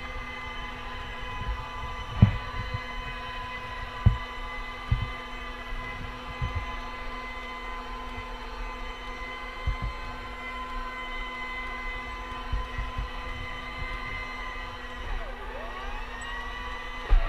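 Electric go-kart motor whining steadily, with a few dull thumps from the kart now and then. Near the end the whine sweeps up and down in pitch as the motor's speed changes.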